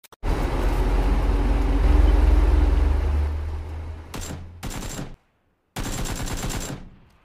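Automatic gunfire from a mobile shooting game: a long burst of rapid shots over a deep rumble, then three shorter bursts, the last cutting off near the end.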